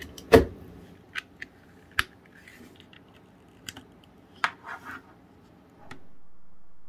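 Clicks and knocks of plastic plugs and connectors being handled and pushed home: a power adapter going into a wall socket with the loudest knock just after the start, then a cable clicking into a small streaming stick. About six seconds in the clicks stop and a faint steady hum takes over.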